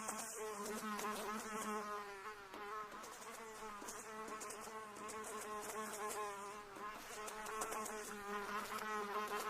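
Cartoon sound effect of a buzzing flying insect: a steady drone that wavers up and down in pitch.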